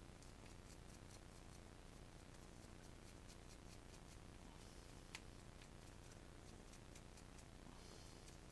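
Near silence: room tone with faint, irregular high ticks and one sharper click about five seconds in.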